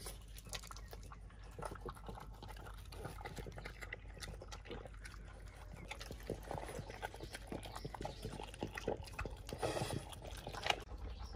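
A French bulldog eating from a bowl: rapid wet chewing, lip-smacking and licking, a dense run of short clicks with a louder bout about ten seconds in.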